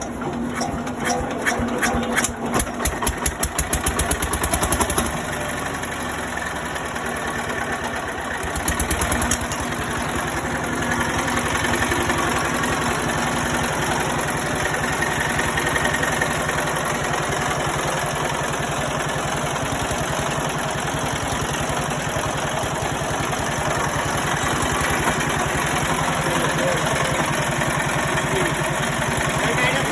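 Old Chinese stationary diesel generator engine: regular knocks quicken over the first few seconds as it comes up to speed, with another brief surge of knocks a few seconds later, then it settles into a steady, even run.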